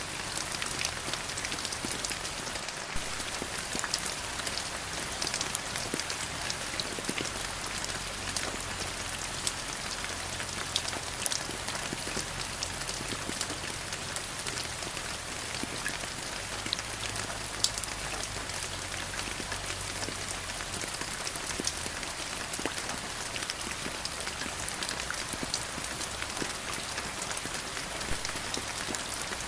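Steady rain falling, with a constant hiss and many separate drops pattering on a surface.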